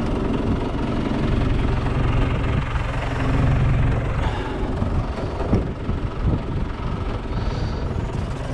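Diesel engine of a John Deere 3200 telehandler running steadily, swelling slightly about three seconds in.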